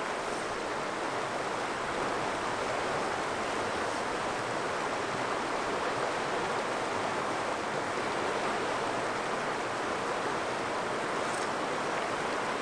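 Steady rush of river water running over rocks in a riffle.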